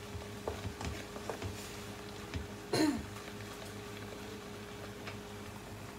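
Plastic spatula stirring chicken and tomato in a non-stick frying pan: light scrapes and taps against the pan over a steady hum. One louder, brief sound with a falling pitch comes just under three seconds in.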